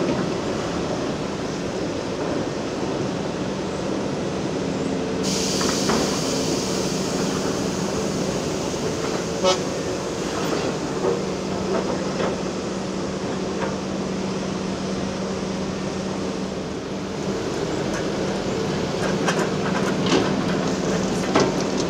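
Heavy hydraulic excavator engines running steadily under load while digging rock. A few sharp knocks of bucket and stone come through, and a hiss starts suddenly about five seconds in and lasts several seconds.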